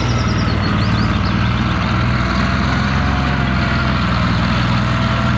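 Tiger I tank driving on mud, its V12 petrol engine running steadily. A few short high squeaks come near the start.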